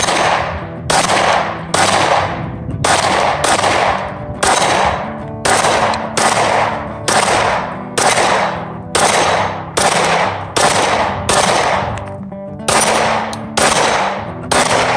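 Polymer80 Glock 17-pattern 9mm pistol fired in a steady string of about twenty shots, one to two a second, with a short pause about twelve seconds in. Guitar music plays underneath.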